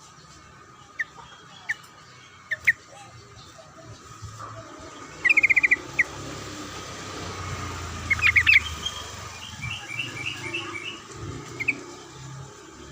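Yellow-vented bulbul (trucukan) calls: scattered short, sharp chirps, with quick runs of rapidly repeated notes about five seconds in and again around eight and ten seconds, over a faint steady hum.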